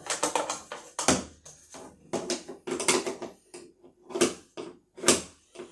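Handling noise as gear is fitted and fastened onto a kayak: irregular knocks, clicks and creaks, with the loudest knocks about a second in and again near four and five seconds.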